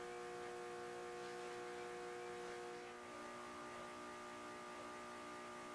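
Faint steady hum made of several held tones, the room tone of the workshop, easing slightly about three seconds in.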